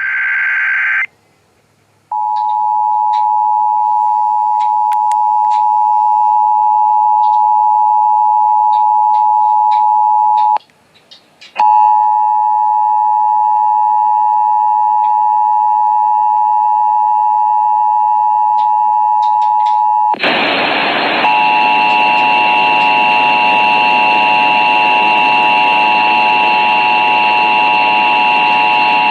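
Emergency Alert System attention signal: a steady two-tone alarm that sounds for about eight seconds, breaks off for a second, then sounds again. About twenty seconds in a loud hiss of radio static comes up under it. It opens with the end of a screeching SAME data burst.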